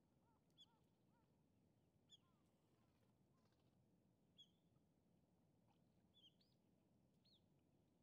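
Faint bird calls over a quiet outdoor hiss: a quick run of soft, arched notes in the first second, then about five short, sharp chirps spaced a second or two apart.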